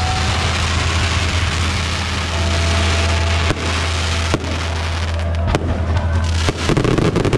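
Fireworks display: a dense, continuous hiss of fountains and bursting shells, then several sharp bangs of aerial shells from about three and a half seconds in, over a steady low hum.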